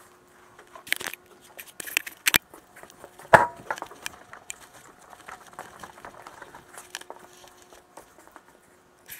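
A cloth rustling and crinkling close to the microphone, with several sharp knocks and clicks, the loudest about three and a half seconds in, then softer rustling. A faint steady hum runs underneath.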